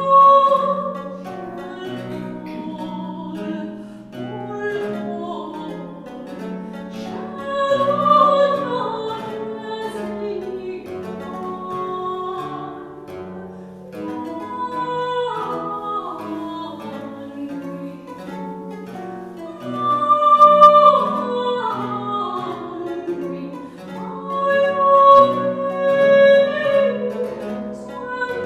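Mezzo-soprano singing in operatic style with harpsichord accompaniment, her held notes swelling loudest about eight and twenty seconds in.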